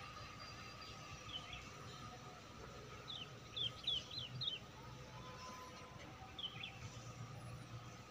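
A small bird chirping in short, sharp notes: a pair, then a quick run of about five, then another pair, over a faint steady background hum.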